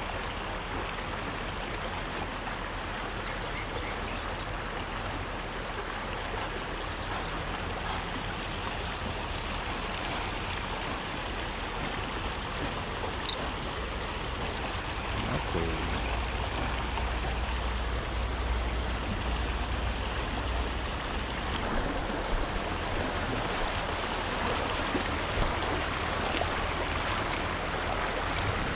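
Shallow rocky mountain stream running steadily over stones and gravel, a continuous rushing of water that grows a little louder about halfway through.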